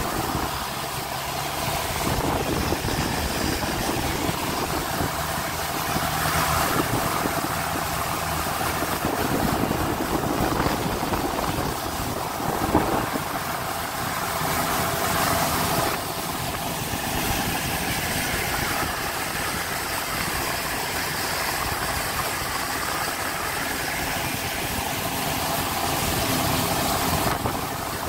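Motorboat engine running steadily, with a continuous low hum under a steady rushing hiss.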